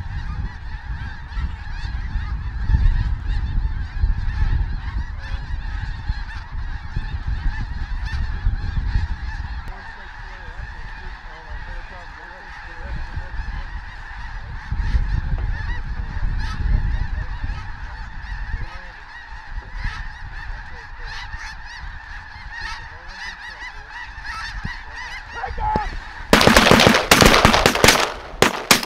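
A huge flock of snow geese calling overhead, a dense, unbroken din of high honks. Near the end a rapid cluster of loud, sharp bangs cuts through it.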